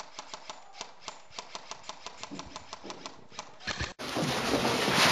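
Airsoft guns firing, a fast uneven string of sharp clicks at about five a second. About four seconds in it cuts to louder, steady scuffing and rattling of players running across a rubble-strewn floor.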